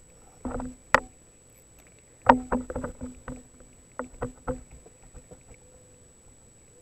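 Knocks and clatter on a plastic kayak while a small fish is reeled in and lifted alongside. A short scuffling burst is followed by a sharp knock about a second in, then two quick clusters of knocks around two and four seconds in.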